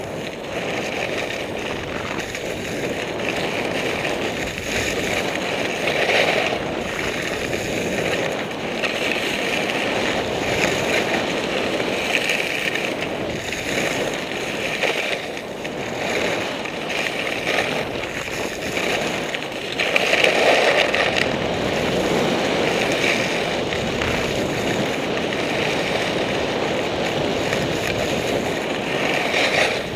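Skis sliding and scraping over hard, icy snow on a downhill run, with wind rushing over the microphone. The scrape swells several times as the edges bite into the turns.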